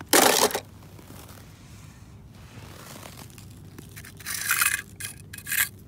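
Die-cast toy cars scraping and clattering against each other and a plastic tub as one is picked out, a short loud burst just after the start. Near the end, a few short crunches of snow as a toy car is pressed down into it.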